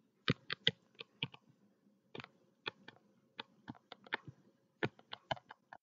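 A run of about twenty short, sharp clicks in irregular clusters: the pen input tapping and clicking with each stroke as numbers are handwritten on a digital whiteboard.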